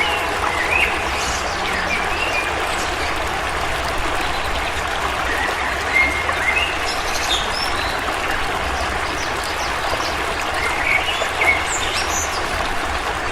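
A steady rushing noise, like running water, with short bird chirps scattered through it now and then.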